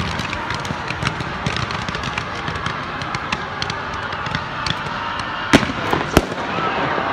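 Fireworks display: a steady crackling hiss from ground-level fountain fireworks, then two sharp bangs near the end as red comet shells launch.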